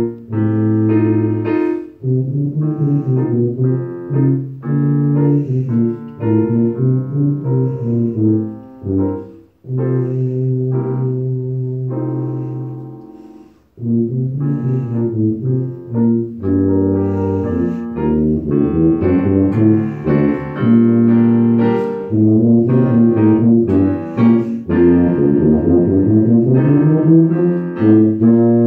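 Tuba solo with piano accompaniment: a line of short, separated low notes over piano chords, with a long held low note near the middle that fades away into a brief break before the playing resumes.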